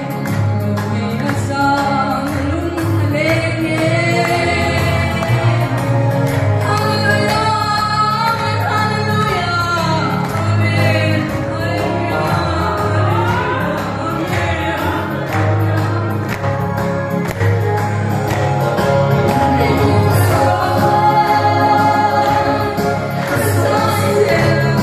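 Gospel hymn sung over instrumental accompaniment, with a steady low bass line under the voices.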